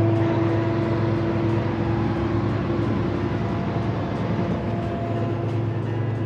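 Heavy tow truck's diesel engine running steadily at highway speed, with a low, even drone and road and tyre noise heard from inside the cab.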